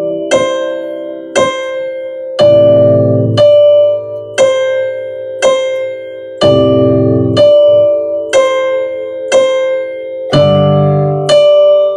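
Digital stage piano playing a slow ballad over a C–Am–F–G chord progression, one chord about every four seconds. On top, a single-note motif repeats D, D, C, C, about one note a second, each note left to ring.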